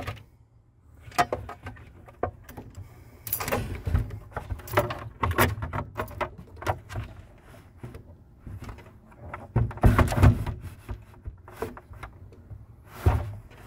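Irregular clicks, rustles and knocks of gloved hands feeding stiff wires into a new RV automatic transfer switch's box and handling it, with a few louder bumps along the way.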